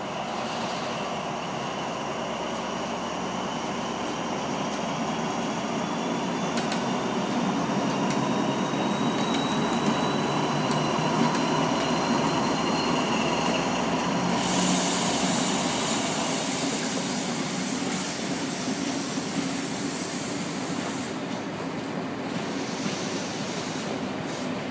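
SNCF BB 67000-family diesel locomotive hauling a passenger train past at low speed: a steady engine and rolling rumble with a thin whine that slowly rises in pitch as it pulls away. About halfway through, the coaches' wheels take over with high hissing rail noise and a little squeal.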